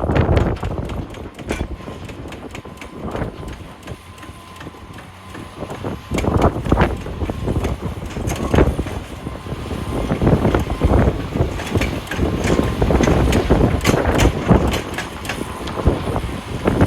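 Heavy machinery loading rocks: a diesel engine running under wind buffeting the microphone, with irregular knocks and clatter. It dips quieter for a few seconds, then the knocks come thick and loud from about six seconds in.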